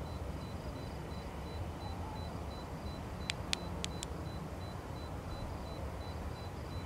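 Outdoor night ambience: a steady low rumble with a faint high-pitched pulsing chirp. A quick run of four sharp clicks a little after three seconds in, as the flashlight's red filter is changed for the green one.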